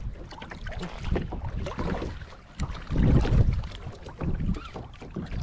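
Wind buffeting the microphone in uneven gusts over water slapping against a plastic kayak's hull, the strongest gust about three seconds in.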